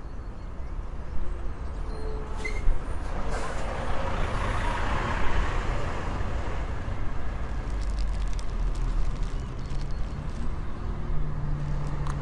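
Street traffic noise, with a vehicle passing by and swelling then fading around the middle.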